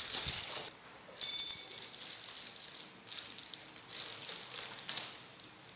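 Plastic bag of model-kit parts being handled and opened: crinkling and rustling, with one loud sharp crinkle about a second in and softer rustles and clicks after.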